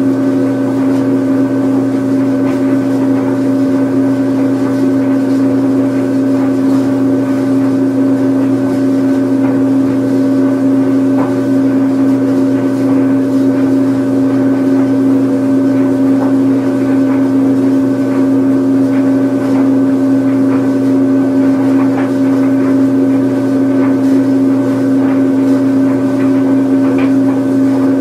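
Washing machine on its spin cycle: a steady motor hum with a constant whine that holds the same pitch and level.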